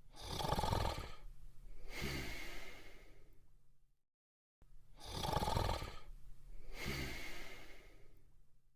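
Cartoon character snoring: a loud rasping snore on the in-breath, then a long out-breath that fades away. The cycle comes twice, each time ending in a moment of dead silence.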